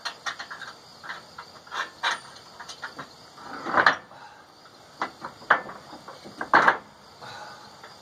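Metal clanks, knocks and scrapes from handling a steel sawmill carriage on its rail track. There are quick knocks throughout, with two louder, longer scrapes about four seconds in and again near seven seconds.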